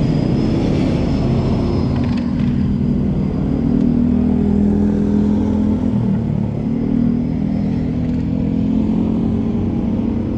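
Vehicle engine running steadily on the move, a continuous low rumble that dips briefly about six seconds in.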